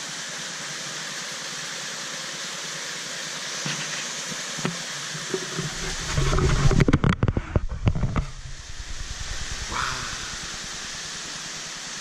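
Small waterfall pouring into a rock pool, a steady rushing hiss of water. About six seconds in, a couple of seconds of loud low rumbling and knocking on the microphone covers it, then the water carries on.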